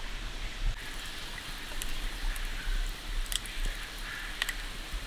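Rain falling steadily, with scattered raindrops ticking sharply every second or so over a low rumble.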